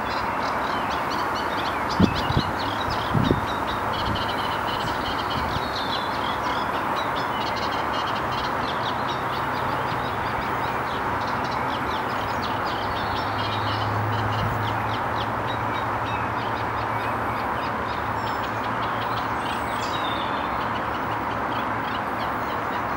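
Steady outdoor background rush with faint, rapid high ticking or chirping over it, two short low thumps about two and three seconds in, and a low hum that swells and fades in the middle.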